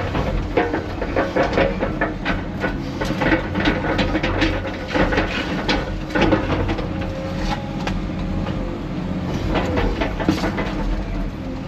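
Heavy diesel construction machinery running with a steady drone, overlaid by many irregular clanks and knocks of broken concrete and steel as demolition rubble is handled and loaded.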